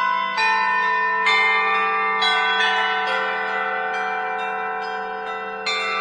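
Bell-like tones struck one at a time, a new note about once a second, each ringing on over a low steady held tone.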